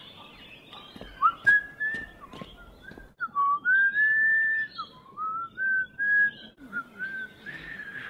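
A man whistling a tune through pursed lips: a string of held notes that slide from one to the next. A few short clicks come in the first couple of seconds.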